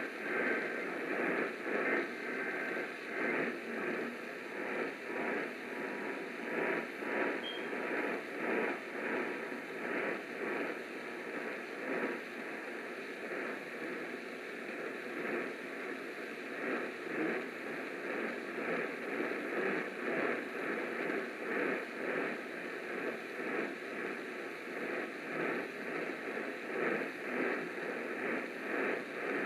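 Static and hiss from a radio receiver tuned to a weak AM signal, the noise rising and falling in level about once a second.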